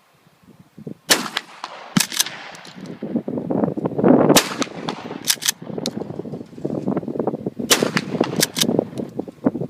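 Gunshots from a 20-gauge Mossberg pump-action shotgun and the range around it: a string of sharp reports, several coming in quick pairs.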